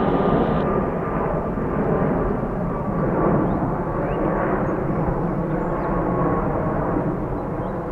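Jet airliner taking off, its engines at takeoff power: a loud steady rumble with a faint high whine.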